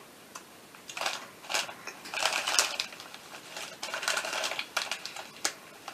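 Foil-lined chip bags crinkling and rustling as they are handled, in irregular bursts of crackling from about a second in.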